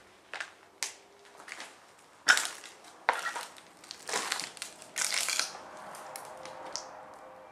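Footsteps crunching over rubble, broken plaster and scattered paper on a concrete floor, about one step a second, each a sharp crunch. From about five and a half seconds in the steps stop and a faint steady tone is left.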